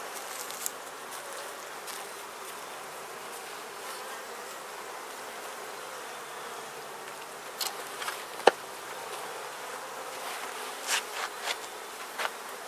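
Honeybees buzzing steadily around an open Langstroth hive, a colony of Italian/Carniolan mix bees. In the second half a few short, sharp clicks or knocks sound over the buzz.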